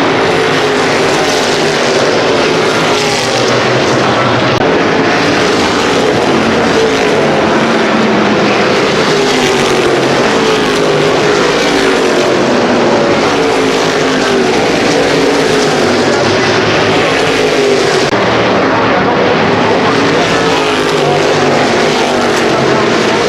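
A field of NASCAR Modified race cars running laps on a short oval. Many engines are heard at once, their pitches rising and falling as the cars pass and work through the corners.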